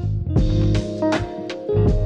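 Background music: a calm hip-hop instrumental with plucked guitar notes over a bass line and drum hits.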